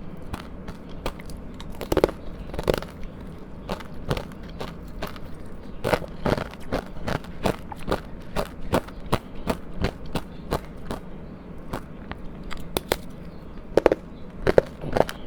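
Close-up crunching of powdery frozen ice being bitten and chewed: a dense, irregular run of crisp crunches, several a second, with a few louder bites.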